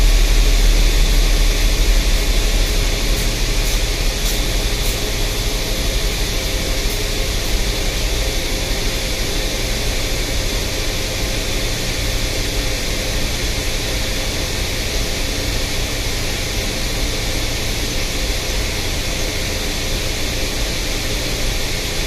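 GMC Acadia V6 engine idling steadily, a constant low hum with hiss. The engine has a mild misfire on cylinder 1.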